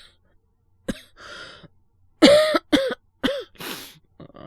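A man's voice performing a coughing fit, acted as someone sick with a cold and asthma. A short cough and a breath come about a second in, then three hard coughs in quick succession, ending in a noisy breath in.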